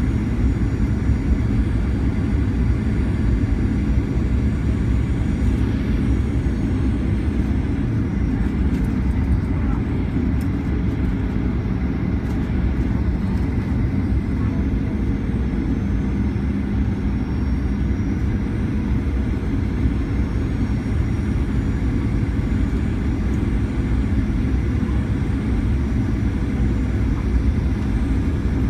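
Cabin noise inside a Boeing 737-900ER on approach: the steady rumble of its CFM56 turbofan engines and the airflow over the fuselage, with a low steady hum.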